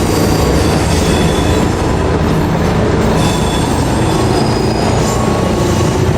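JR Kyushu KiHa 200 diesel multiple unit running past at close range: a steady, loud rumble of diesel engines and wheels on rail. Thin high-pitched wheel squeals come and go over it.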